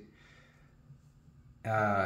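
Near silence with faint room tone, then a man's voice starts talking near the end.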